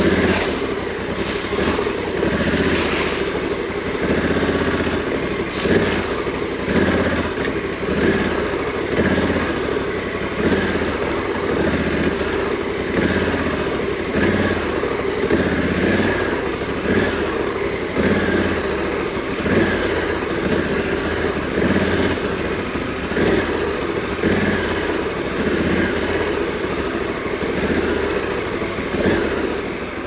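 Honda CRF1100L Africa Twin DCT's 1084 cc parallel-twin engine riding off-road, its sound rising and falling in regular surges about once a second as the throttle goes on and off over whoops.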